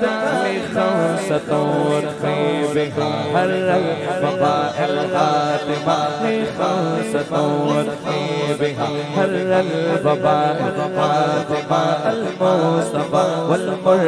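Men's voices singing a devotional qasida: a lead voice draws out long, wavering melodic lines over other voices holding steadier notes beneath.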